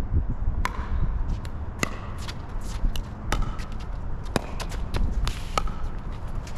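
Pickleball rally: sharp pops of paddles hitting the plastic ball about once a second, with fainter ticks between them, over the low rumble of wind on the microphone.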